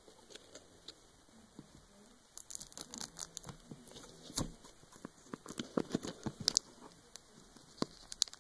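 Plastic shrink wrap on a cardboard DVD box crinkling and crackling as it is picked at and torn with a small metal badge clip. It comes as quick irregular clicks that grow busier about two seconds in.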